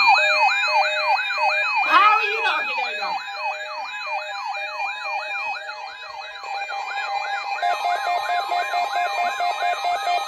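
Several electronic siren alarms sounding at once, their tones sweeping up and down over and over, about three sweeps a second, over steady alarm tones, with a short lower glide about two seconds in.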